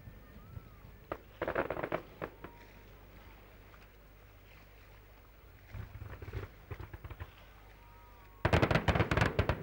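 Fireworks going off: scattered bangs and crackling, with a short cluster about a second and a half in and a dense run of rapid crackling bangs near the end, the loudest part.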